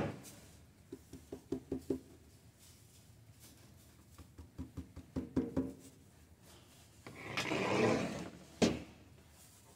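Metal baking sheets being tapped and knocked with small ringing clanks as dried seed heads and chaff are shaken off them, in two short runs of taps. About seven seconds in comes a longer rush of seeds and chaff pouring off a tray, followed by a single sharp knock.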